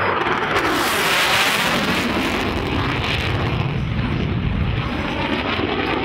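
Jet fighter roaring past during an airshow flyby. The noise comes in suddenly, is brightest about a second in, then carries on as a rumbling roar.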